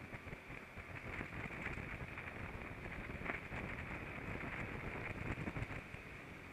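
Go-kart driving at speed on a track, heard through an onboard camera: a muffled rumble and crackle of wind and engine, with no clear engine note.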